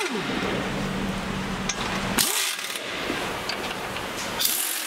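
Pneumatic impact wrench driving in bolts on a motorcycle frame, running in short bursts about two seconds apart, each with a hiss of exhaust air.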